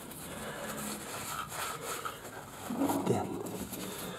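Paper towel rustling and rubbing as the oil drain plug is wiped clean, with a louder brief sound about three seconds in.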